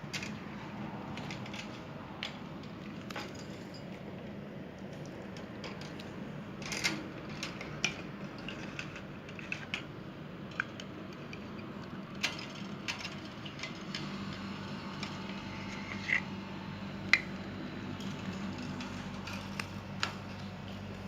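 Pet lovebirds making scattered light clicks and taps, with a few short high chirps, over a low steady hum.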